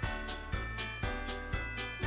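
Background music with a steady beat of about two thumps a second over held chords, with bright jingling percussion between the beats.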